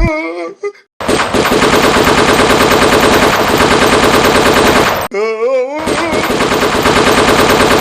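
Rapid, continuous machine-gun fire from a prank gun-sound effect. It starts about a second in, breaks off for a moment near the middle for a short wavering wail, then fires again until the end.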